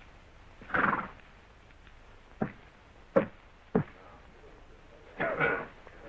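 Footsteps on wooden boards: three sharp knocks. A wooden door is pushed open near the end with a short rasping noise, and a similar rasping noise comes about a second in.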